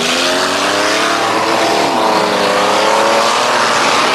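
Ford Bronco's engine revving hard under full throttle as the truck launches, heard from inside the cab. Its pitch climbs, dips about two seconds in, then climbs again.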